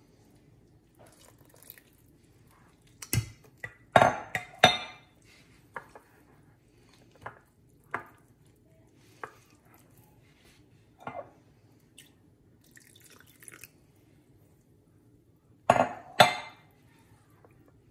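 Metal wire whisk clinking and scraping against a ceramic bowl while whisking flour and water into a wet batter. The taps come irregularly, with louder clusters of clinks about four seconds in and again near the end.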